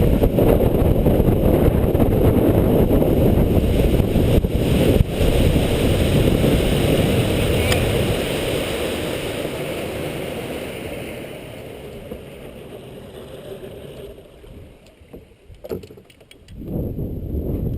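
Wind buffeting the microphone, a loud dense rumble that eases off over several seconds after about ten seconds in, followed by a few brief knocks.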